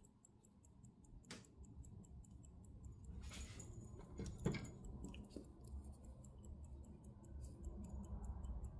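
Waltham Vanguard 18-size pocket-watch movement ticking faintly and evenly, about five ticks a second, with a few soft handling knocks and rustles.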